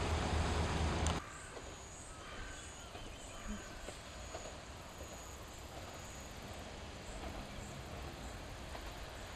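A loud, steady low rumble that cuts off abruptly about a second in. After it, quiet outdoor ambience with a high chirp repeated over and over, roughly every half second.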